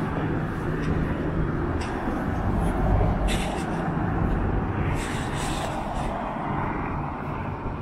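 Street traffic: a motor vehicle's engine running close by with a steady low rumble, and a hiss that swells and fades about five seconds in.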